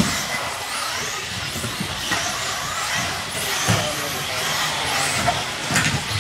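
1/10-scale XRAY RC buggies racing on a carpet track: their electric motors whine, rising and falling in pitch as the cars accelerate and brake. A sharp knock comes at the very start, and a few lighter knocks follow.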